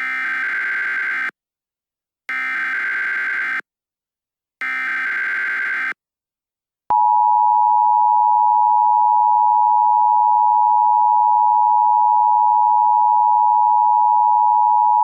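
Emergency Alert System SAME header: three short, buzzy bursts of data tones about a second apart. About seven seconds in they are followed by the loud, steady EAS attention signal, the 853 and 960 Hz two-tone beep.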